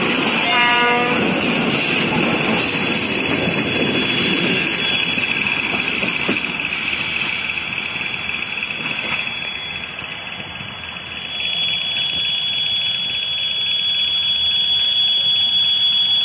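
ChME3 diesel shunting locomotive running past close by with one carriage, a loud engine rumble and rail noise that fade as it draws away. From about two-thirds through, a steady high-pitched alarm tone sounds.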